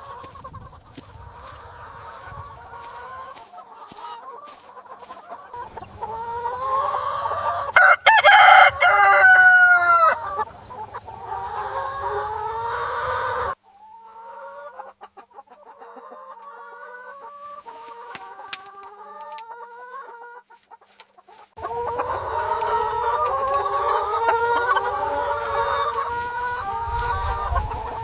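A flock of chickens clucking, with a rooster crowing loudly about eight seconds in. The sound of the flock changes abruptly three times, at roughly even intervals.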